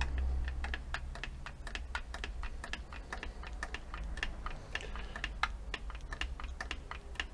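Grease gun rig pumping grease into a seized brake caliper to force its pistons out: rapid, irregular clicking, about three to five clicks a second, over a low steady rumble.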